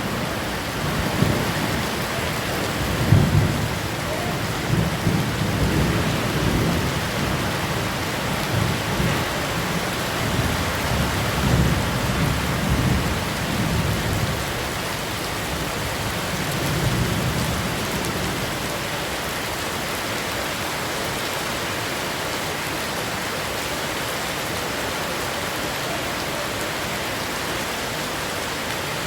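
Heavy rain falling in a steady hiss. Irregular bouts of low rumbling run under it for roughly the first eighteen seconds, then die away and leave only the rain.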